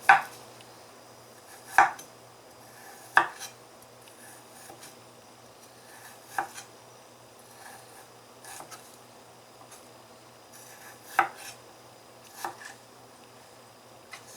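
Kitchen knife peeling the skin off a piece of fresh ginger on a cutting board: faint scraping broken by sharp, irregular taps of the blade against the board, several seconds apart.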